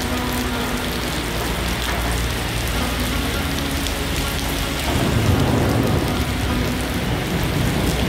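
Steady rain pouring onto wet pavement, with a low rumble of thunder swelling about five seconds in.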